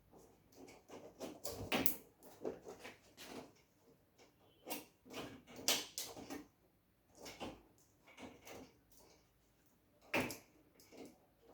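Irregular knocks, clicks and rattles of an LCD TV's panel and frame parts being handled and fitted during reassembly, with sharper knocks about 2, 6 and 10 seconds in.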